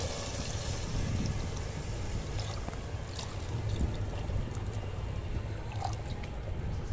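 Water pouring steadily from a plastic jug into a metal pot of chicken curry, splashing into the liquid.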